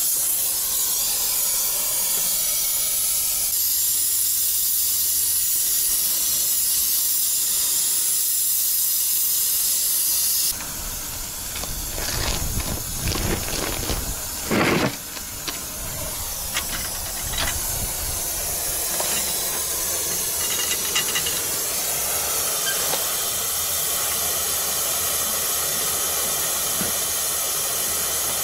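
Welding a steel profile onto a trailer's brake shoe carriers: a steady, loud hiss of the weld for about ten seconds. Then the sound cuts to a run of irregular knocks with a short loud burst about halfway, and a steady hiss returns for the rest.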